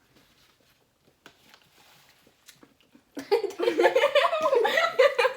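Faint scattered mouth clicks of chewing, then from about three seconds in, loud laughter.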